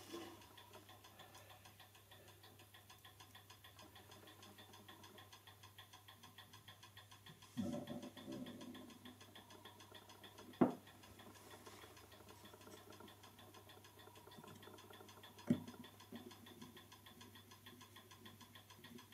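A clock ticking fast and steadily, with a short spell of handling noise and two sharp clicks of small screws and tools being worked by hand.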